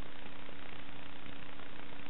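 Electric motor and propeller of an FPV model aircraft running steadily at constant cruise throttle: an even drone with one steady tone, under a heavy hiss.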